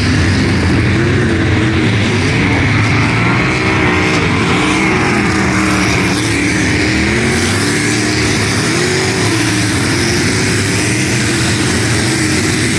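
Dirt-track race cars' engines running at racing speed, their pitch repeatedly rising and falling as the cars accelerate and back off around the oval.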